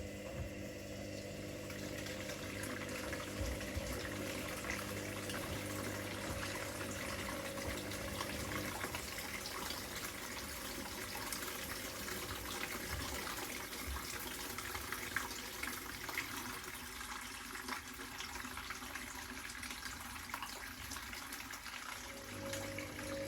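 Water poured steadily from a watering can into a washing machine, an even splashing rush that lasts most of the time, over the hum of the running machines, which fades out partway through and comes back near the end.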